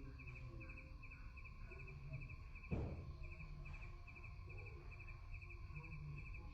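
Crickets chirping in a steady rhythm, about two chirps a second, over a low rumble and hiss from a heavily amplified quiet recording, with one short knock near the middle.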